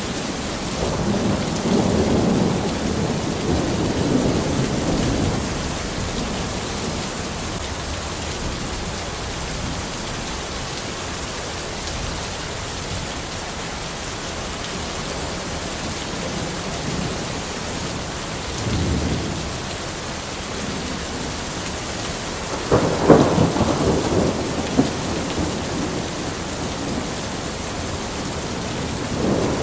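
Steady rain falling in a forest, with rolls of thunder rumbling through it: one near the start, a brief one past halfway, and the loudest about three-quarters of the way in.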